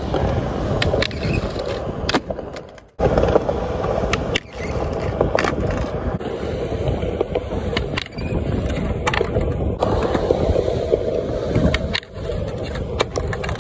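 Skateboard wheels rolling over rough concrete, with sharp clacks as the board pops, flips, lands and hits the ground, and the scrape of the board sliding on a concrete ledge, in repeated attempts at a noseslide nollie heelflip. The rolling breaks off abruptly a few times.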